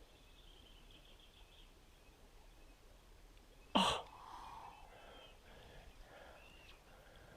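Faint birds chirping over quiet riverside background. About four seconds in there is one short, sudden, loud burst of noise that fades within half a second.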